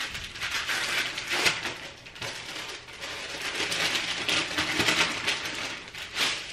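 Brown kraft wrapping paper rustling and crinkling as a present is unwrapped by hand. The crinkling comes and goes in a few louder spells.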